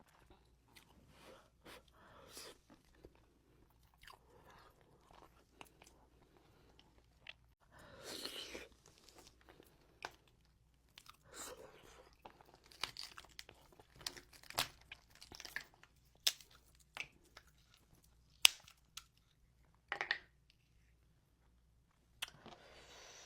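Close-miked eating from a seafood boil: irregular chewing and crunching, with scattered sharp clicks and a few short, louder bursts of noise.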